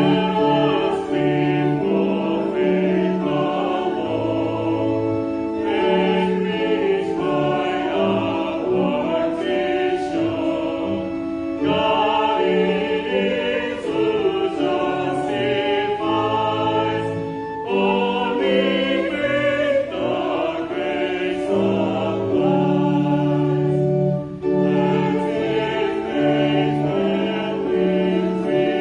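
Church choir singing a hymn in parts over a steady instrumental accompaniment, in phrases of about six seconds each.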